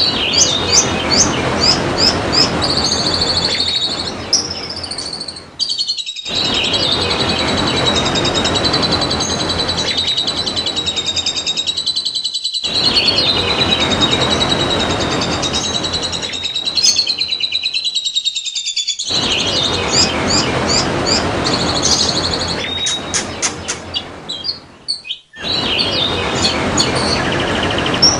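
White-eyes (pleci) singing: rapid high chirps and a long fast warbling song over steadily trickling water, with the whole sound dropping out briefly a few times where the recording is cut.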